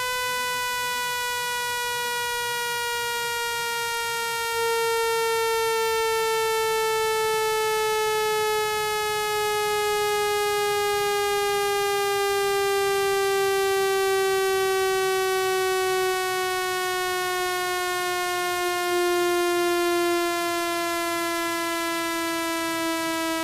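Synthesized speaker-cleaning tone: a loud, buzzy electronic tone rich in overtones, gliding slowly and steadily down in pitch.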